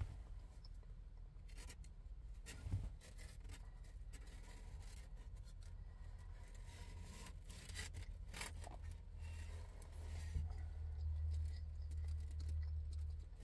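Plastic fork scraping and clicking against a foam takeout container of rice, scattered soft clicks and rubs, over a low steady hum that swells about ten seconds in.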